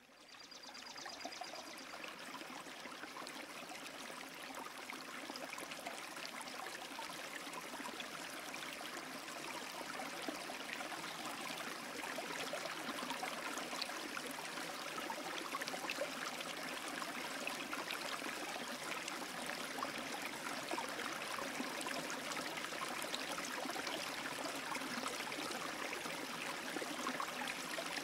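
Steady running, trickling water that fades in at the start and then holds.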